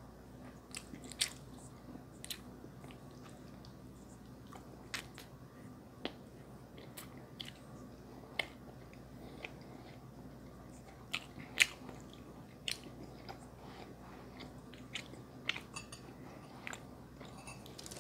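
Close-miked chewing and mouth sounds, with irregular sharp clicks scattered throughout and one much louder click about two-thirds of the way in.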